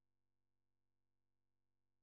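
Near silence: the audio track is essentially empty, with no events.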